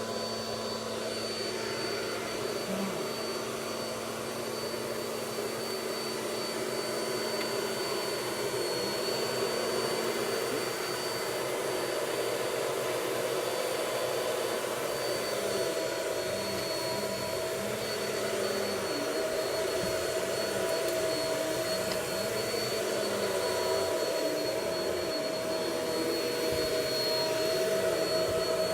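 Vacuum cleaner running steadily, with a constant high whine over its motor noise.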